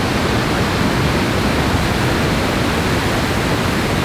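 Rain-swollen waterfalls thundering in full spate: a loud, steady rush of falling water and spray.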